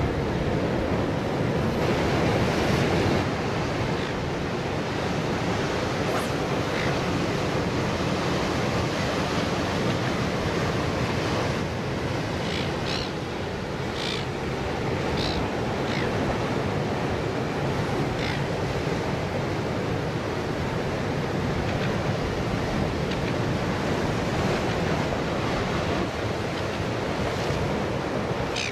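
Ocean surf breaking and washing against rocks, a steady rushing, with a few brief high-pitched chirps near the middle.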